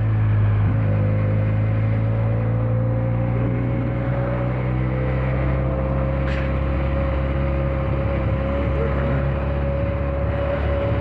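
Benelli 302 motorcycle's parallel-twin engine and exhaust running under way at a steady speed, the note holding almost constant with a slow, slight rise in pitch.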